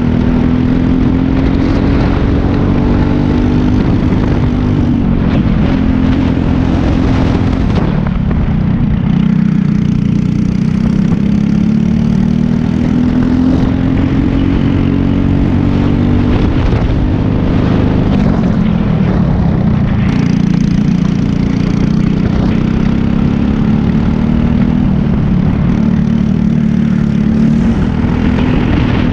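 Briggs & Stratton LO206 single-cylinder four-stroke kart engine heard onboard at speed, its revs climbing steadily along each straight and dropping off sharply for the corners, several times over, with wind and road noise underneath.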